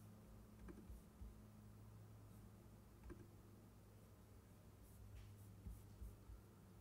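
Near silence: a faint steady low hum with a few faint, scattered ticks or taps.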